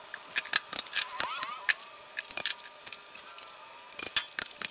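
PVC pipes and push-fit fittings clicking and knocking as they are handled and fitted together on a timber workbench, in many light, irregular knocks.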